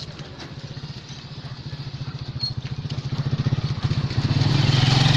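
A motorcycle engine running and growing steadily louder as it approaches.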